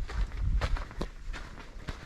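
Footsteps of a hiker walking at a steady pace, each step a short scuff or crunch, over a low rumble.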